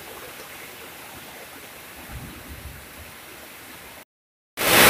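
Steady hiss of rain falling on pond water. Near the end the sound cuts out for half a second, then returns as a sudden loud rush of noise.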